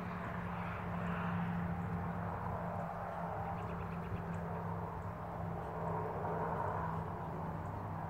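A distant engine's steady low drone under a rushing noise that swells and eases twice.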